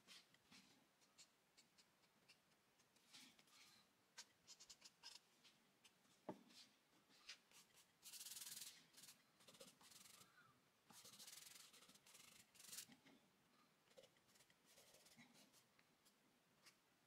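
Charcoal pencil scratching on drawing paper in short strokes, then fingers rubbing across the paper to blend the charcoal in two longer rubs, the first about halfway through and the second a few seconds later. Faint throughout.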